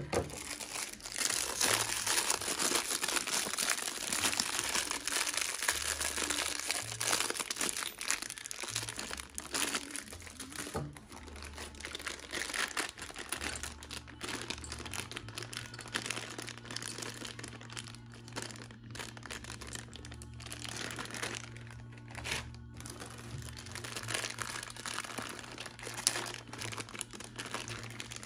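Clear plastic zip-lock bags crinkling and rustling irregularly as hands open and handle bagged GoPro mounts, over background music with a low bass line.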